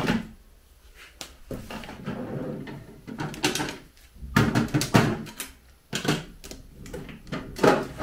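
A vanity table's pull-out drawer sliding, and makeup brushes and small items clattering as they are put into its plastic organiser tray: a run of clicks and knocks, loudest about halfway through and near the end.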